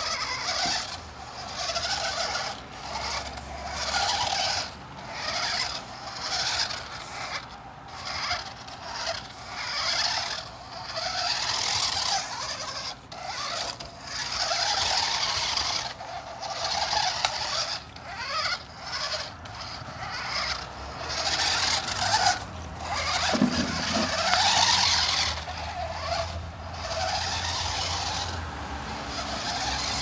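Toy remote-control stunt car's small electric motors and gears running in repeated short spurts, stopping and starting as it drives, turns and flips in snow.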